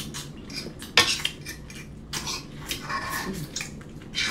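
A metal fork clinking and scraping against a food tray while picking at leftovers, a string of short clicks and scrapes with the sharpest clink about a second in.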